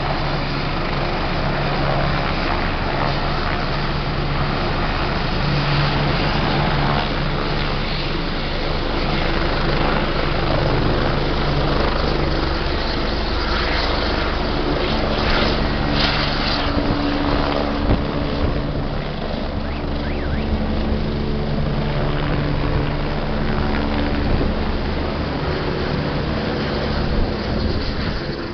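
EMERCOM rescue helicopter running loud and steady, turbines whining and rotor beating as it lifts off and flies away.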